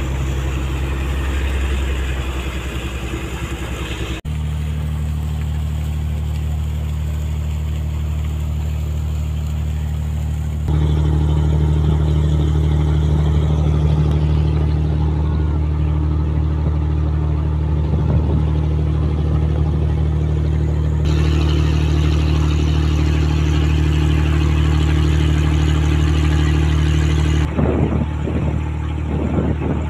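Passenger riverboat's engine running with a steady low drone heard on deck, its tone and loudness changing abruptly a few times.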